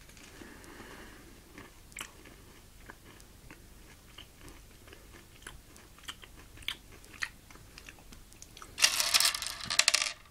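Chewing and crunching a candy-shelled dark chocolate M&M, with scattered small crisp crunches. Near the end comes about a second of loud, dense clicking as the hard-shelled candies are pushed together across a wooden table by hand.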